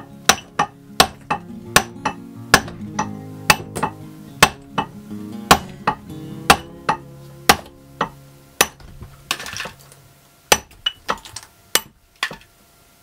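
A lump hammer striking a steel pitcher chisel against the edge of a York stone slab, knocking off pieces to square it into a circle: a quick, steady run of sharp metallic strikes.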